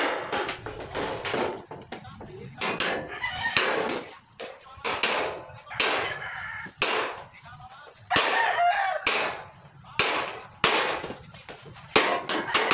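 A hammer taps a hand-held metal tool against a galvanized steel sheet: sharp metallic strikes at irregular intervals, roughly one a second, as the sheet is marked and worked along a line. A rooster crows about two-thirds of the way through.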